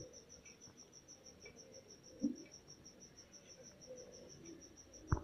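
An insect, cricket-like, chirping steadily as a high, evenly pulsed tone, with one sharp click near the end.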